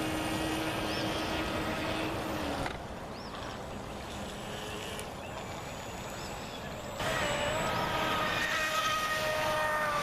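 Radio-controlled boat with a brushless outrunner motor driving a Kyosho Dolphin outboard, running on the water. The motor whines over a hiss of water and wind. The sound drops quieter for about four seconds in the middle, then comes back louder with a steady whine.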